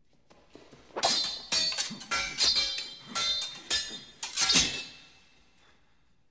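Steel sword blades clashing and ringing in a quick run of about eight sharp strikes over some four seconds.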